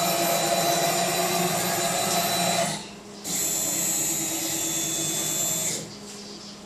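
Small CNC machine's motor running with a steady whine. It cuts out briefly near the three-second mark, starts again, and stops about six seconds in.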